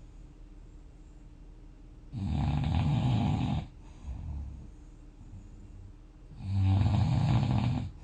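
A sleeper snoring: two loud snores about four seconds apart, each lasting about a second and a half, with a softer breath between them.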